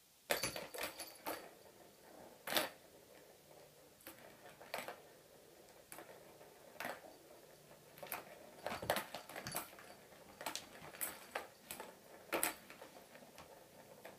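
A small plastic ball rattling and clacking around a plastic circular track cat toy as a kitten bats at it with its paws, in irregular clicks and short rattles with pauses between.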